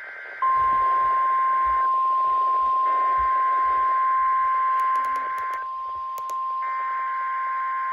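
NOAA Weather Radio warning alarm tone: a steady, single high tone starting about half a second in, sounded for the required weekly test. Over it come repeated bursts of buzzy two-pitch digital data tone, each a few seconds long with about a second of gap between, typical of the SAME header code, with a couple of brief clicks near the middle.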